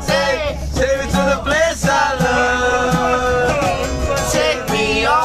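A man singing to a strummed acoustic guitar, holding one long note through the middle, over a steady low rumble from the moving train.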